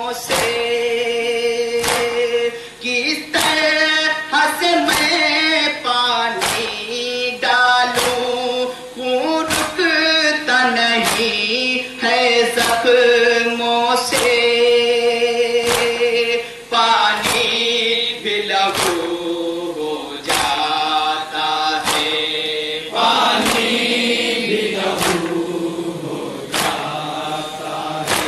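Nauha, a Shia Muharram lament, chanted by a lead reciter with a group of male mourners singing along, over a steady beat of sharp slaps about once a second, the matam of hands striking chests in time with the lament.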